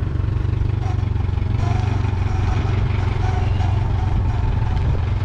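Komatsu forklift engine running steadily as the forklift drives slowly under load.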